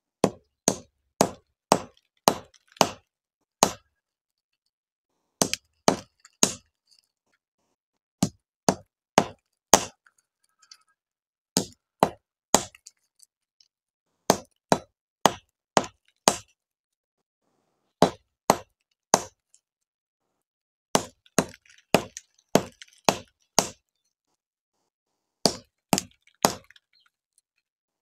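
Sharp strikes cracking the hard stones of Syrian juniper (andız) fruit, coming in quick runs of three to six blows about half a second apart with short pauses between.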